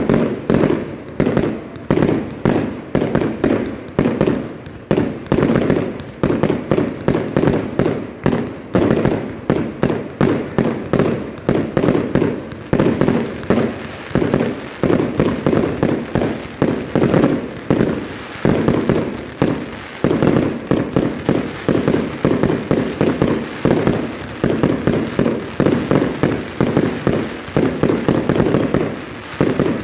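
Fireworks display: a dense, unbroken barrage of exploding shells, sharp bangs following one another about two a second.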